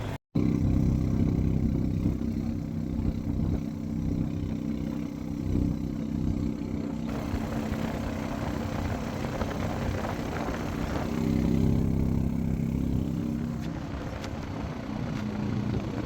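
A motor vehicle's engine running steadily, a continuous low drone.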